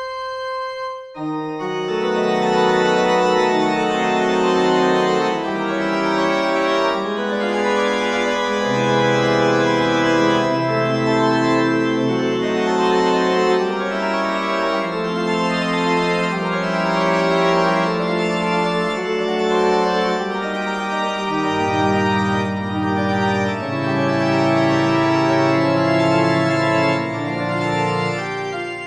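Organ music: held chords over a slow bass line that changes every few seconds, starting about a second in.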